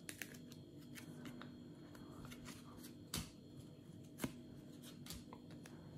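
Glossy Match Attax trading cards being slid and flicked through by hand: faint card-on-card rustling with a few short clicks, the clearest about three seconds in and again a second later.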